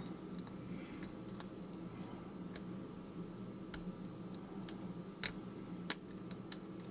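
Lock pick working the pin tumblers of a brass-bodied padlock: scattered small metallic clicks at an uneven pace as the pins are lifted and set.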